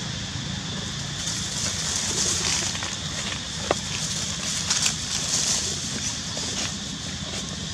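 Dry leaf litter crackling briefly under young macaques a few times about halfway through. Behind it is a steady outdoor background of a low rumble and a high hiss that swells and fades every second or two.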